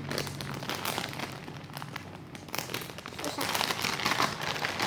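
Plastic packaging bag crinkling and crackling as it is handled and opened to take out a squishy toy.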